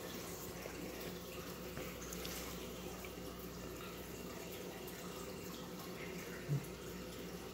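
Steady sound of running water circulating in a saltwater reef aquarium, with a faint steady hum.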